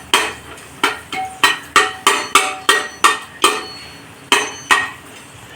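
A metal spoon or ladle repeatedly striking the inside of a metal pressure cooker while stirring, about a dozen sharp ringing clinks at roughly three a second, with a short pause near the end.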